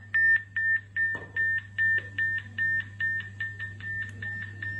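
Digital two-way radio's buzzer beeping in an even series, about two and a half short high beeps a second, the signal that the radio has entered over-the-air frequency writing mode. A low steady hum runs underneath.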